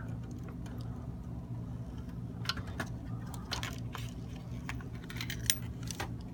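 Scattered small clicks and light rattles of hands working on the hard drive and its wires inside a desktop computer case, over a low steady hum.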